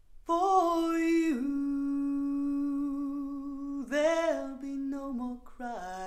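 Solo female voice singing long, wordless held notes, with a slight step down in pitch about a second in, a second phrase about four seconds in, and shorter falling notes near the end. It is recorded music played back through Harbeth SHL5+ loudspeakers driven by a FEZZ Audio Mira Ceti 300B valve amplifier and picked up by a microphone in the room.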